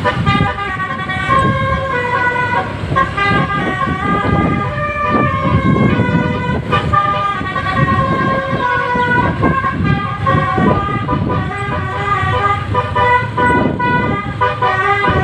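Bus basuri horn, a multi-tone 'telolet' air horn, playing a melody in quick stepped notes over a low rumble.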